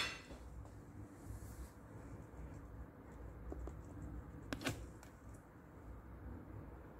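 Quiet kitchen room sound with a couple of sharp clinks about four and a half seconds in, as a metal ladle and a bottle of oyster sauce are handled over a wok.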